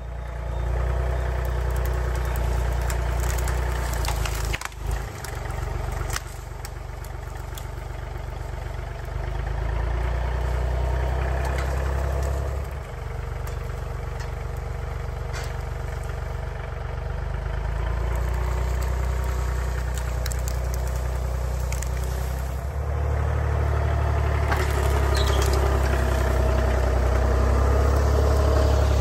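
John Deere 3033R compact tractor's three-cylinder diesel engine running under changing load as its front grapple grabs and drags a fallen pine tree through brush, with scattered cracks and snaps of branches. The engine grows louder near the end as the tractor drives close by.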